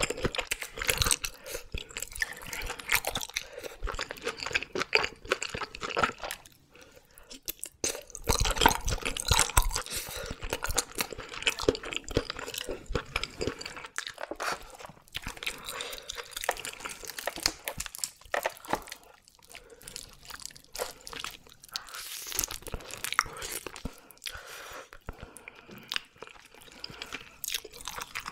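Close-miked chewing of raw red sea bream sashimi: a dense run of quick, irregular wet clicks and mouth smacks, with a short lull about a third of the way in.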